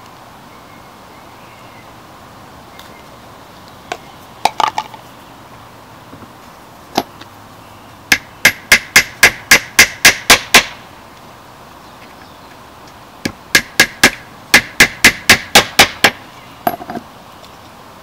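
Claw hammer tapping wooden dowel pegs into a wooden log-cabin frame. A few scattered taps come first, then two runs of quick, even strikes at about four a second, the first about eight seconds in and the second about thirteen seconds in, with a couple more taps near the end.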